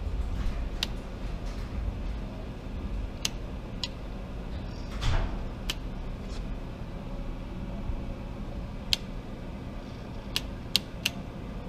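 Scattered sharp clicks, about eight spread out, from a click-type torque wrench tightening the clutch pressure-plate bolts on a Ducati Monster 620's wet clutch, over a low steady hum. A short gliding sound falls in pitch about five seconds in.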